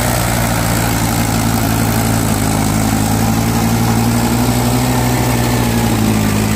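Mahindra 575 DI tractor's four-cylinder diesel engine running steadily at close range, under load as it tows a mud-stuck Eicher tractor and trolley.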